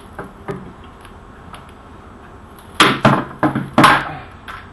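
Plastic 5-gallon buckets knocking and thudding as they are handled and one is worked inside the other: a couple of light clicks, then a quick run of about five loud knocks a little before the end.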